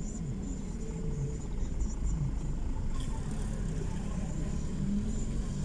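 Slow-moving road traffic: car engines and tyres giving a steady low rumble, with a faint click about three seconds in.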